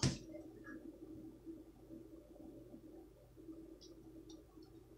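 Hands handling card stock on a wooden table: a sharp tap right at the start as the card is set down, then faint paper rustles and small taps about four seconds in, over a steady low hum.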